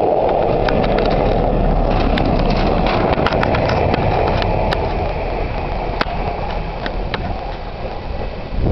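Two-car diesel railbus running away along the track, a steady rumble with a rapid, irregular clicking of its wheels over the rail joints; it grows a little fainter near the end.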